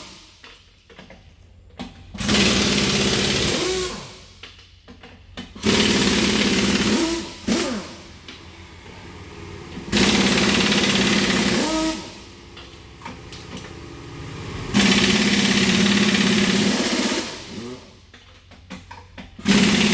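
Impact wrench running in repeated bursts of two to three seconds, about five times with short pauses between, removing the wheel fasteners on the driver's side of a semi truck's rear axle for a brake and drum job.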